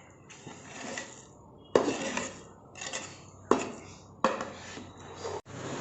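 A metal utensil clanking and scraping against a cooking pot, with three sharp clanks, the first nearly two seconds in and the others past the middle.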